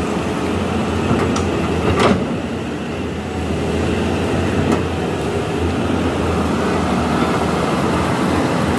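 Caterpillar hydraulic excavator's diesel engine running steadily at work. A sharp metallic clank comes about two seconds in, and a lighter one near the middle.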